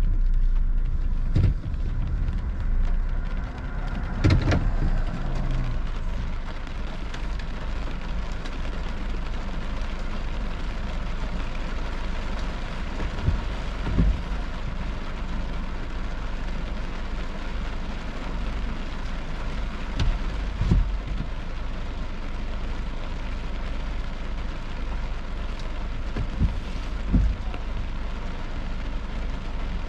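Rain falling on a car, heard from inside, with the car's engine running low underneath. Short thumps come every six or seven seconds, mostly in pairs.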